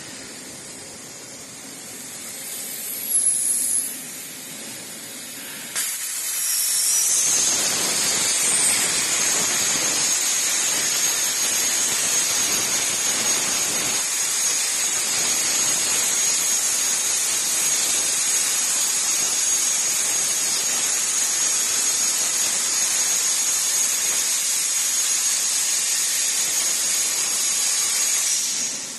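Hypertherm HPR400XD plasma torch cutting. A short gas hiss comes about three seconds in, then the arc starts sharply about six seconds in. It runs as a loud steady hiss with a thin high whine on top and stops abruptly near the end.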